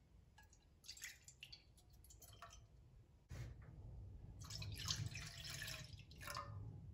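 Milk pouring from a plastic cup into a wide nonstick pan, splashing and dripping in irregular bursts over a low steady hum. It gets louder a little after halfway.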